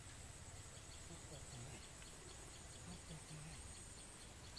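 Faint outdoor ambience: a steady high-pitched insect drone, with faint distant voices now and then.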